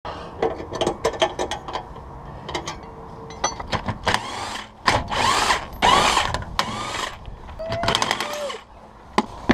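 Mechanical tool work on car wheel nuts: irregular sharp clicks and rattles, with louder whirring bursts in the middle.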